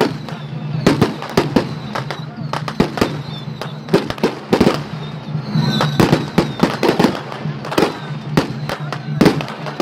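Firecrackers going off in quick, irregular bangs, several a second, with no let-up.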